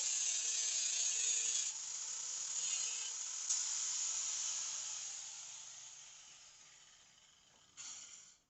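Steel being worked by hand or with an abrasive tool: a steady scraping hiss that fades over the last few seconds, with a short burst of scraping near the end.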